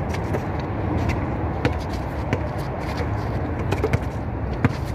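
Basketball bouncing on an outdoor concrete court: about half a dozen sharp thuds at irregular intervals, the loudest near the end, over a steady low rumble.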